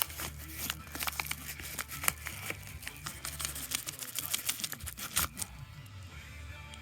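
Packaging crinkling, rustling and tearing as a parcel is unwrapped by hand: dense, irregular crackles that die down about five and a half seconds in.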